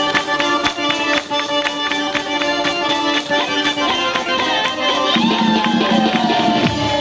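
Fast Caucasian folk dance music of the lezginka kind, with a quick, steady drum beat under a melody line that slides about in pitch near the middle.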